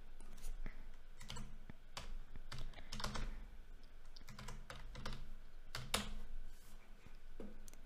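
Typing on a computer keyboard: irregular, separate keystrokes as a short name is typed.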